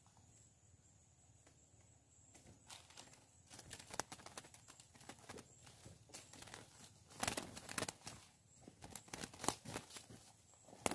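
A wild chopi blackbird flapping its wings and scrabbling against the bars of a bamboo bird-trap cage: irregular rustles and clicks that thicken about two seconds in and are loudest around seven and nine seconds.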